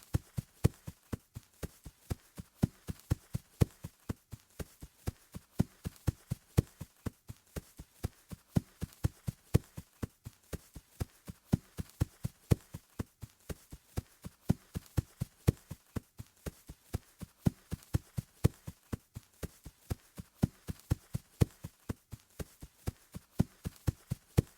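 Footsteps on grass, a steady run of dull thuds at about three steps a second, some footfalls louder than others.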